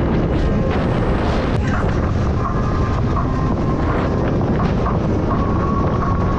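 Wind rushing over the microphone with the engine and water noise of a jet ski under way. A faint, steady high tone comes and goes from about two seconds in.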